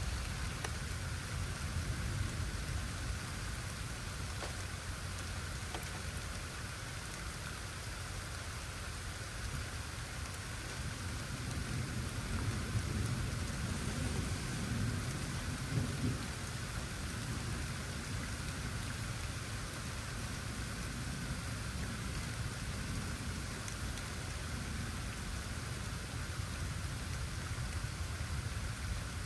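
Steady rain falling, with a low rumble of thunder that swells about halfway through and fades again.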